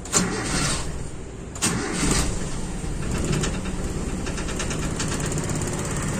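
Toyota Kijang carburetted engine cranked on the starter; it catches about two seconds in and settles into a steady, even idle. The rough, shaking running is cured now that the PCV vacuum hose is reconnected.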